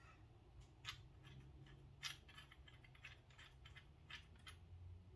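Near silence broken by a few faint, sharp clicks of small metal knife parts and tools being handled, the clearest about one and two seconds in.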